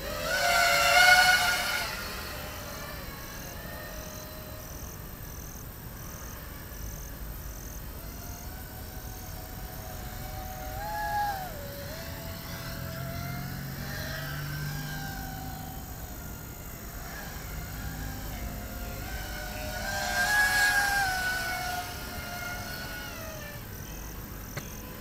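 HGLRC Batman220 FPV quadcopter's brushless motors whining in flight, the pitch rising and falling with the throttle. A loud surge comes about a second in and another around twenty seconds in.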